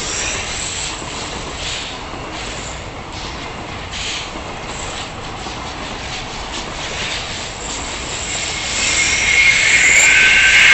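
Freight train passing at speed: a steady rumble of wheels on rail with irregular clacks over the rail joints. About nine seconds in it grows louder, and a high tone comes in and rises in pitch near the end.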